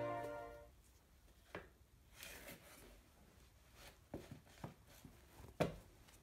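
Background music fading out in the first second, then a few faint, scattered knocks and scuffs of shoes being stepped into on a tiled entryway floor.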